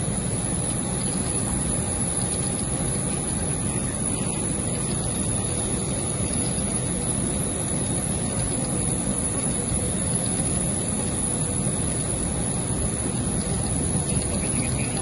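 Steady rushing noise with a thin high whine from the parked Boeing 737 airliner's turbines running on the apron.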